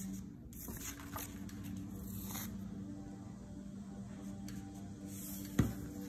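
Construction paper being slid and shuffled on a wooden table in several soft swishes, with a single sharp knock near the end.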